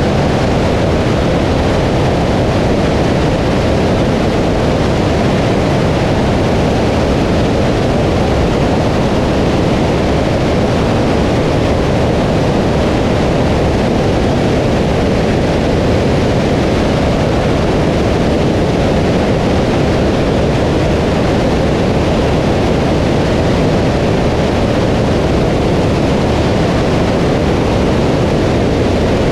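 Steady, loud wind noise from airflow over a camera mounted outside a Socata TB20 single-engine light aircraft in flight, with the aircraft's engine and propeller mixed into the noise.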